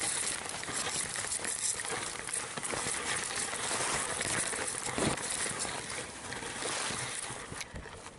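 Dry reed stalks rustling and crackling as they brush past, a dense, steady rustle full of small snaps that fades near the end.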